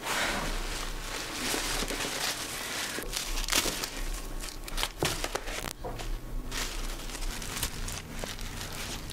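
Bouquet wrapping paper and flower stems crinkling and rustling as the bouquets are handled and pulled apart. Irregular sharper crackles come here and there.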